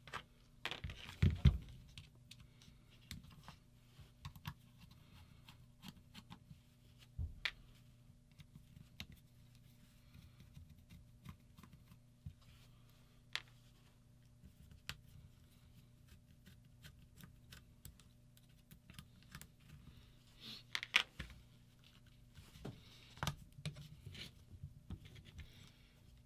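Scattered small clicks, taps and light scrapes of metal and plastic as an Angel paintball marker is handled and its grip panel is taken off with a hex key. Under them runs a faint steady low hum.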